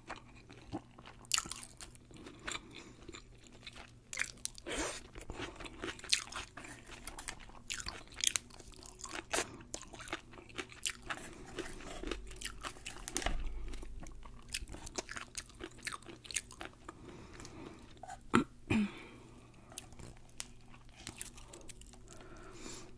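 Close-miked chewing with many irregular, crisp crunches: a person eating pickled sushi ginger and sushi.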